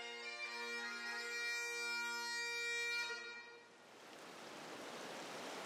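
Bagpipe music: a steady drone under held melody notes, fading out about three seconds in. A steady rushing noise takes over and slowly grows louder.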